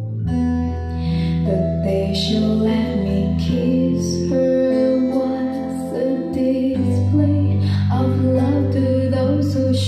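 A song with female vocals over guitar and steady bass notes, played through a pair of Polk Audio LS-50 floor-standing loudspeakers.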